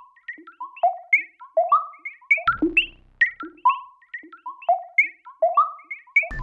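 Background music: a quick melody of short plucked notes, several a second.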